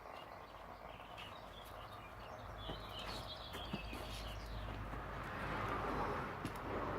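Quiet outdoor background with a low hum and a few faint clicks, and a brief high chirping about three seconds in.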